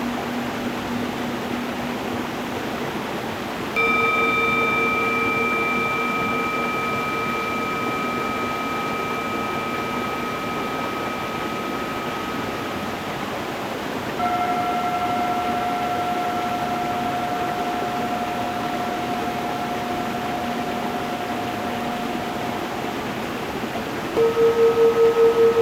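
Singing bowls struck three times, about ten seconds apart, each at a different pitch, ringing out and slowly fading over the steady rush of a stream. The last one pulses with a wavering beat as it rings.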